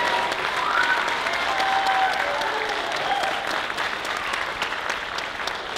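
Audience applauding, dying away gradually.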